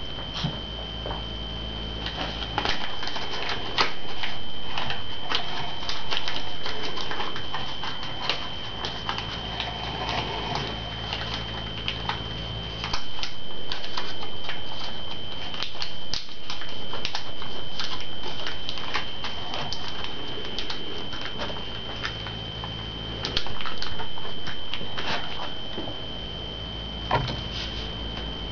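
Origami paper being folded and creased by hand: irregular crackling clicks of stiff paper over a steady high-pitched whine and a low hum that comes and goes.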